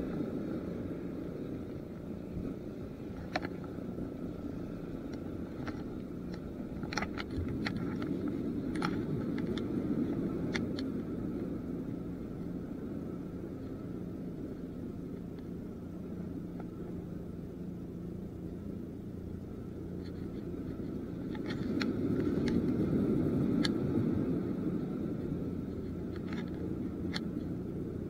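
Steady low rumble of sea surf washing against concrete tetrapods, with wind on the action camera, swelling twice as larger waves come in. Scattered faint clicks sit over it.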